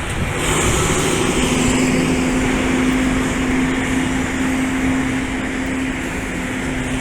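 Loud, steady vehicle noise with a constant low hum that sets in about a second and a half in and holds without changing pitch.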